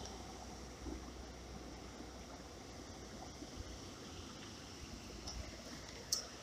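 Faint, steady rush of creek water, with a brief click about six seconds in.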